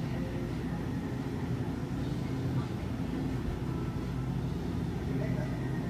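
Convenience-store room tone: a steady low hum with faint background chatter.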